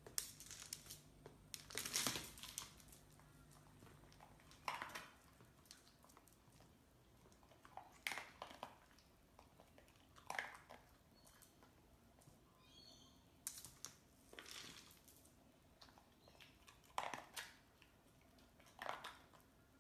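Faint, short scuffs and knocks every two to three seconds as a dog noses a red rubber Kong toy about on a tiled floor.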